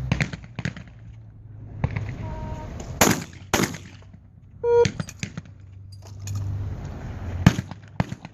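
Shotgun shots on a trap range: two loud shots about half a second apart around three seconds in, and another loud shot near the end, with lighter clicks and knocks in between. A short pitched call or beep sounds just after the pair, over a low steady hum.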